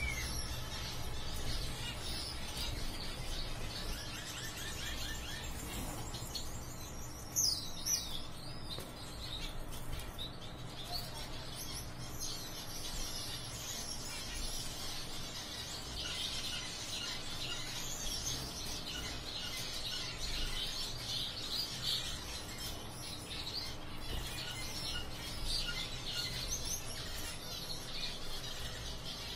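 Caged zebra finches calling: many short chirps overlapping, busier in the second half, over a steady low hum.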